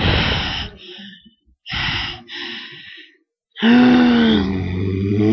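A young woman's voice: two loud, sharp gasps, then about three and a half seconds in a long, wavering voiced cry.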